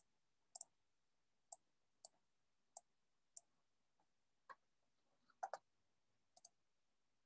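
Faint, irregular clicking over near-silent room tone: about a dozen short, sharp clicks at uneven intervals, with a louder close pair about five and a half seconds in.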